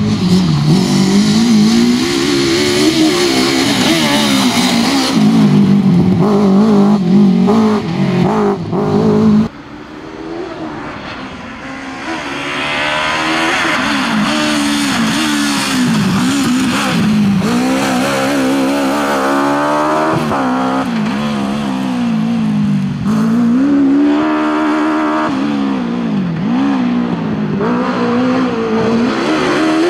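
Suzuki Swift rally car's engine driven hard, revs climbing and dropping again and again through gear changes and lifts off the throttle. About a third of the way in the sound drops away suddenly, then builds back up as the car comes closer.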